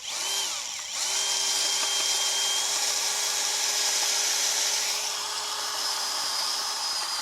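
Power drill driving a 10-inch timber screw into hard, gravelly road base as a garden-border anchor: a short spin, a brief stop, then a steady motor whine held for several seconds as the screw goes in.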